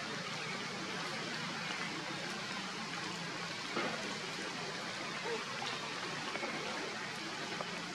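Steady hiss of water, even throughout, with a few faint ticks, one a little before the middle.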